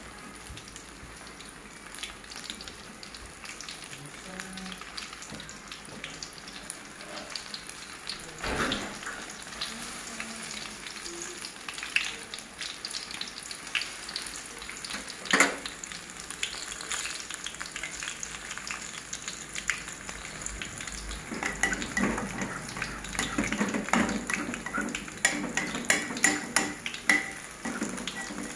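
Hot oil sizzling and crackling as battered banana fritters deep-fry in a wok, with a fresh batter-coated piece lowered into the oil. Two sharp knocks come about 8 and 15 seconds in, and the crackling grows denser in the last several seconds.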